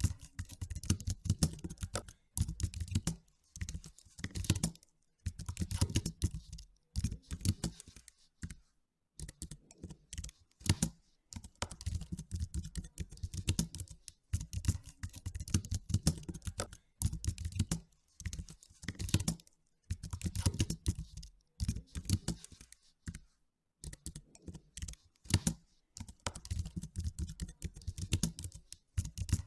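Typing on a computer keyboard: runs of rapid keystrokes lasting a second or two, broken by short pauses.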